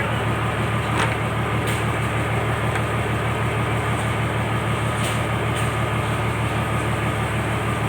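Purse-seine fishing boat's engine running at a steady speed, with a few light knocks.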